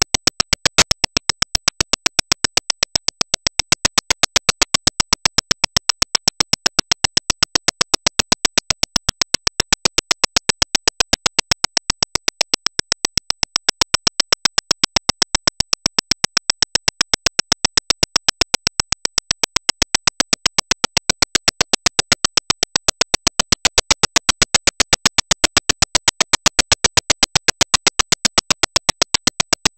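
Rapid, evenly spaced metallic ticking, several sharp clicks a second without a break, whose source is unexplained.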